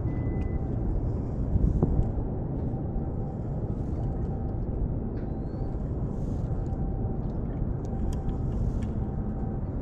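Steady low rumble of outdoor harbour-side ambience, with a faint steady hum that comes and goes and a few light clicks; it swells briefly a little under two seconds in.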